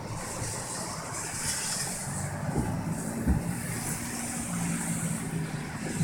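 Steady rush of storm noise with a vehicle engine humming past through the middle, and a single sharp knock about three seconds in.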